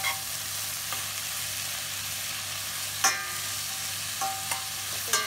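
Chopped red onions sizzling in hot oil in a pan as they are sautéed, while a spatula stirs them and scrapes against the pan a few times.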